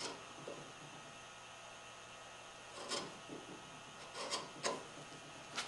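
A few light knocks and rubs of wooden workpieces being handled and set down on a workbench, mostly in the second half, over a faint steady hum.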